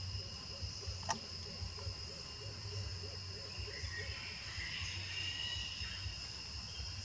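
Forest ambience carried by a steady, high-pitched insect drone over a low rumble. A single short, sharp chirp sounds about a second in, and faint warbling calls come in near the middle.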